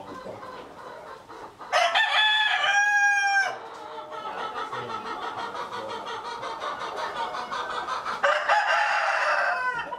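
Red Dorking roosters crowing twice: a long crow about two seconds in and another near the end that trails off in a falling note, with hens clucking between the crows.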